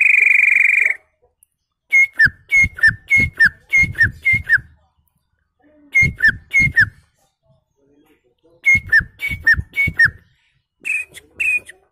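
A man whistling by mouth in imitation of a prenjak's (prinia's) call: one held note at the start, then runs of short notes that each drop in pitch, about three a second, with short pauses between the runs.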